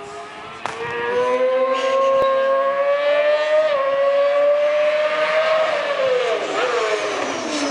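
Racing motorcycle engine at high revs, getting louder about a second in, its pitch climbing steadily with a brief dip at an upshift about three and a half seconds in, then falling near the end as the bike goes by.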